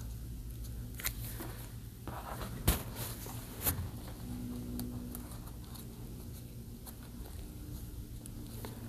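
A small piece of tape being cut and handled: light rustling and scraping with a few sharp clicks, the loudest about two and a half seconds in, over a steady low hum.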